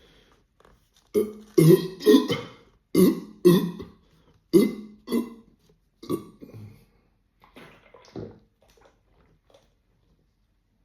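A man belching repeatedly from a stomach full of carbonated water: a quick run of about seven short, loud burps, then a few fainter ones.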